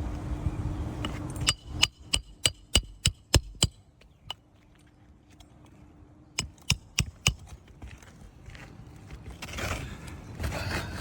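Hammer driving roofing nails to fasten a replacement asphalt shingle: a quick run of about eight ringing strikes, a pause, then four more.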